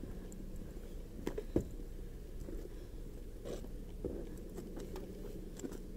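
Clothing rustling and a few soft knocks against a body-worn camera, over a low steady hum.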